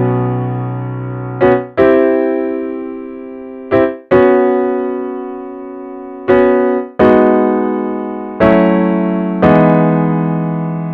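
Electric piano patch on a Roland Verselab MV-1 playing a slow chord progression. Each chord is struck and left to ring and fade, with a brief short chord before some of the longer ones.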